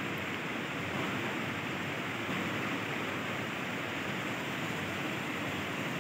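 Steady, even hiss of room noise with no distinct sounds.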